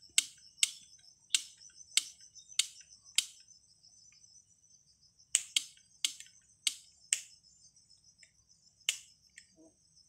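Steady high-pitched insect drone from the trees, overlaid by sharp chip-like clicks that come about two a second in short runs, with a pause of a couple of seconds in the middle.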